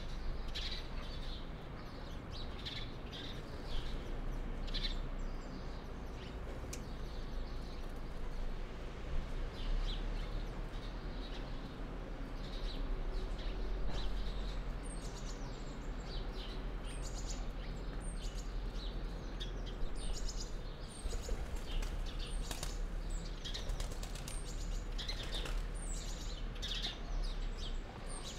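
Several small songbirds chirping and calling in short notes, with a run of thin, very high notes repeating every second or two from about halfway through, over a steady low rumble.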